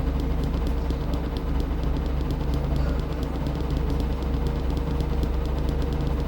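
Washing machine running, a steady motor hum with no breaks.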